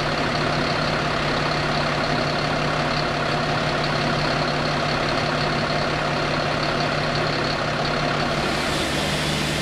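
Fire engine's motor running at a steady speed, a constant low drone with a steady hiss over it.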